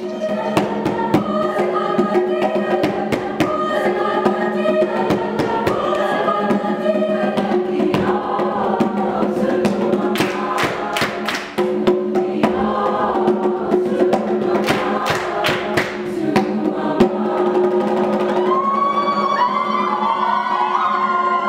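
A group of voices singing together over a steady held low tone, with sharp drum or clap hits scattered through it.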